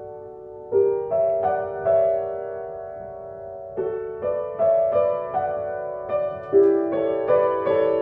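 Piano playing a slow melody of struck notes that ring on, a familiar tune transposed up a half step from its original key.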